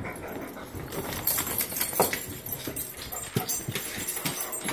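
Dogs' nails clicking and tapping irregularly on a hardwood floor as they walk about.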